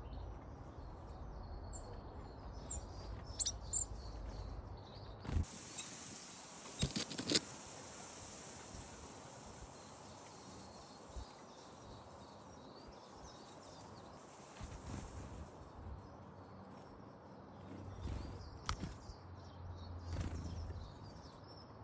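Small garden birds giving short, high chirps and calls, with a few sharp taps about seven seconds in. A high, steady hiss runs through the middle stretch.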